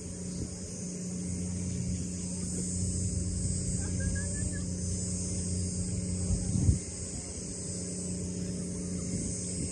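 A steady low engine hum with an even high hiss over it, and a single thump about two-thirds of the way through.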